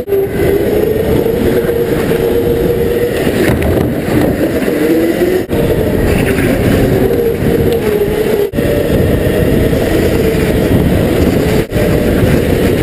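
Go-kart engine running at speed, its pitch rising and falling as the kart accelerates out of and eases into the corners, over a steady rush of noise. The sound drops out briefly three times.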